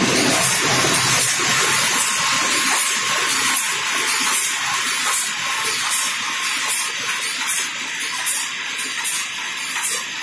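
Gripper-type UV spot coating machine running: a steady hiss with a faint regular tick a little more often than once a second.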